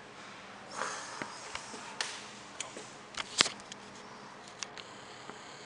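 Quiet handling noise from a handheld camera being moved: a soft rustle, then scattered small clicks, one sharper click about three and a half seconds in, over faint steady hiss.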